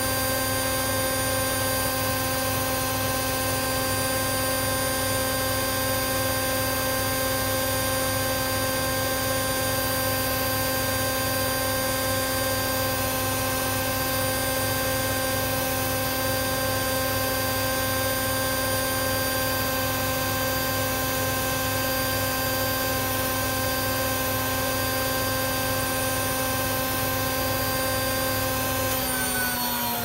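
Hoover Ecologic 1300 washing machine on a dry spin test with an empty drum, its motor and drum whining steadily at high spin speed. Near the end the whine starts to fall in pitch as the spin begins to slow down.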